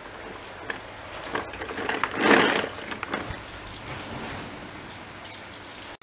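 Cloth rag rubbing and wiping the plastic rim and inside of a TRUSCO Nakayama wet/dry vacuum's canister, with scattered light knocks and one louder rubbing rustle about two seconds in.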